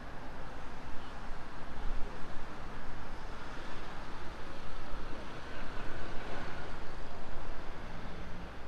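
City street ambience: a steady wash of passing road traffic.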